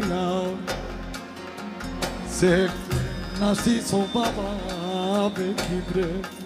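Balkan Romani band music: a winding, ornamented lead melody with pitch bends over a bass line and a steady low drum beat.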